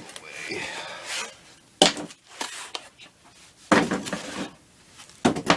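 Cardboard packing being pulled out of a shipping box and handled: rustling and scraping with a few sharp knocks and crinkles.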